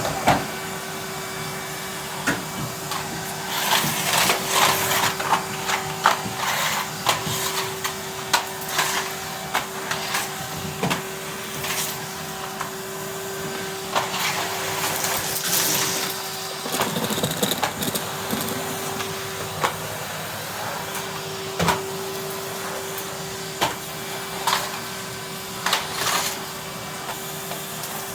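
Vacuum cleaner running steadily with a constant motor hum and hiss, with frequent short clicks and rattles of bits of debris being sucked up through the nozzle.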